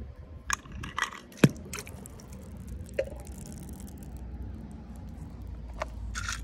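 A die-cast toy van being handled over pool water and dipped into it: scattered clicks, knocks and small water sounds. The loudest is a sharp knock about a second and a half in.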